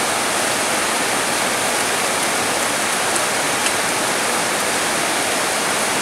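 Steady rain falling, an even hiss that holds level throughout, with a couple of faint ticks near the middle.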